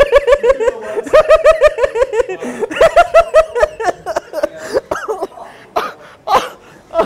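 Hard, helpless laughter in fast repeated ha-ha pulses. It pauses briefly about two and a half seconds in, picks up again, and then trails off into scattered shorter laughs.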